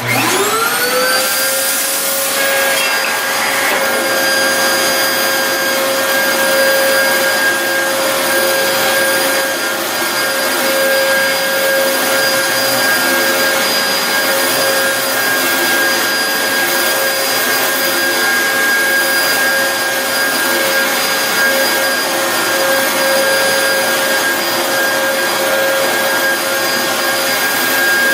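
Dyson DC07 upright vacuum cleaner switched on: its motor whines up to speed within about a second, then runs steadily with a high whine over the rush of air.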